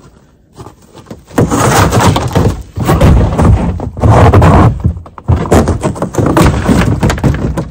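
Loud handling noise close to the microphone: thunks and rubbing with a heavy low rumble, in four long bouts that start about a second and a half in.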